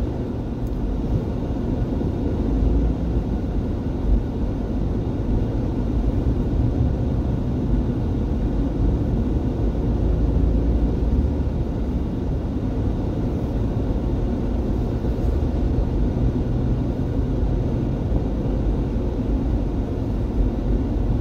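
A car driving at a steady speed, heard from inside the cabin: a steady, low road and engine rumble.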